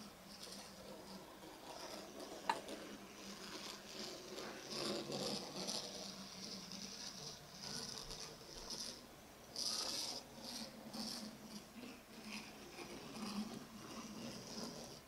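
Faint rattling hum of the tiny electric motors and gear drives in two model Smart cars (Faller Car System conversions) running along the track, with one sharp click about two and a half seconds in.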